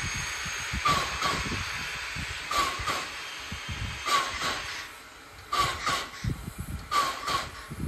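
Small steam tank locomotive working slowly, sharp exhaust chuffs coming in pairs about every second and a half over a steady hiss of steam.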